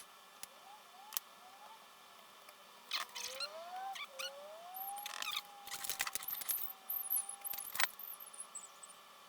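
NEMA 17 stepper motors driving the plotter's belt-driven axes: a whine that glides up and down in pitch as the motors speed up and slow down, longest from about three seconds in to near the end. Scattered clicks and rattles come with it.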